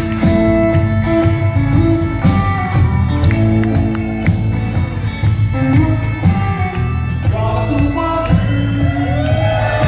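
Great Highland bagpipes playing a slow, held melody over a live band of electric guitar, upright bass and drums. A voice joins in singing near the end.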